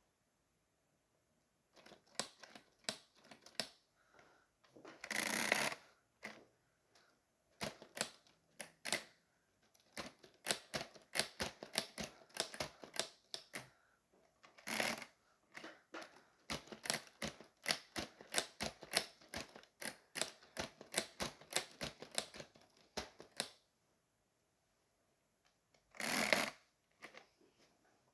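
Plastic keys of a LEGO Ideas typewriter clacking in quick irregular runs of typing, several strokes a second. Three longer noisy bursts break into the typing: one about a second long near the start, a short one midway and one near the end.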